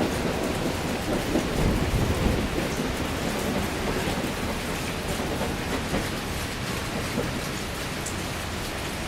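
Heavy rain falling in a steady, dense downpour, with a low rumble that swells about one to three seconds in.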